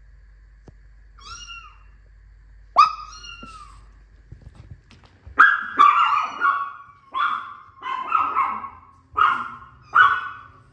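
Two cat meows played as a recording, then a Maltese dog barking repeatedly, about eight barks in quick succession.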